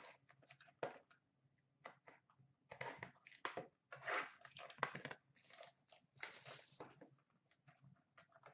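Faint rustling and tearing of a hockey trading-card box and its pack being opened by hand, in short irregular bursts that are busiest from about three to seven seconds in.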